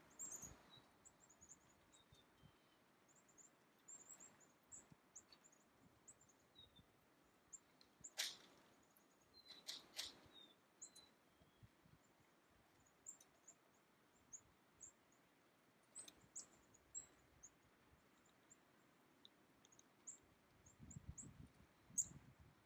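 Faint, high, short bird chirps repeating irregularly throughout, with a few sharp taps about eight to ten seconds in.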